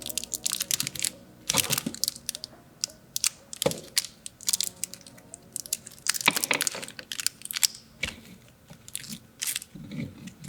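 Irregular clicks, scrapes and crinkling of computer parts and packaging being handled by hand, with a few sharper clicks among them.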